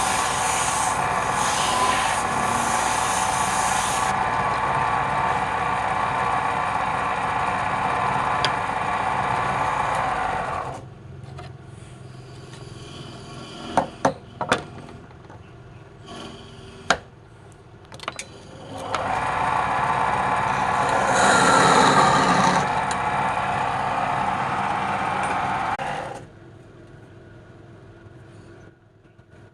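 Woodturning lathe running steadily as a tool cuts the spinning wood. About ten seconds in it drops away to a quieter stretch with a few sharp knocks, then runs loud again for several seconds before dropping off near the end.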